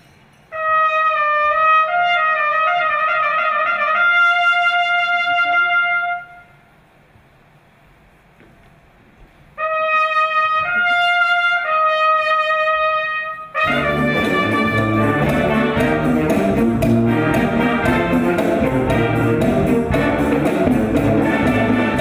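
Background music: a solo trumpet plays two slow phrases of held notes with a pause between them. About fourteen seconds in, the full ensemble comes in and the music fills out.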